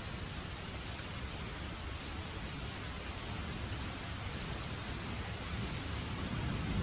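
Waterfall: water falling and splashing in a steady rush, with a deep rumble underneath.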